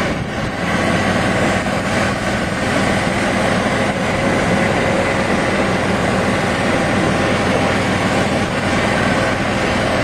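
Golf cart driving steadily along a cart path: a loud, even engine drone with a rushing noise over it.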